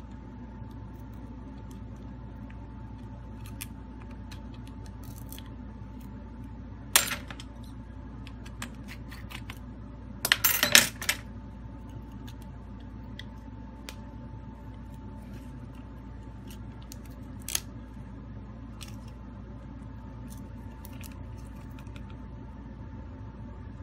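Small metal clinks and taps from repair tools and parts on a disassembled Huawei Mate 20 smartphone: one sharp clink about seven seconds in, a short cluster of clinks a few seconds later, and a single tick later on, over a steady background hum.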